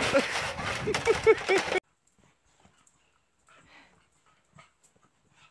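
A dog giving four or five short, high yips over a steady rushing noise, which cuts off abruptly under two seconds in; after that only faint scattered rustles and taps.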